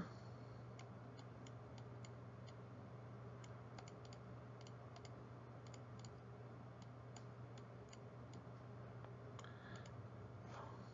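Faint, irregular clicks from the pen or mouse input as oxygen symbols, bond lines and electron dots are drawn by hand in a computer drawing program, over a low steady hum.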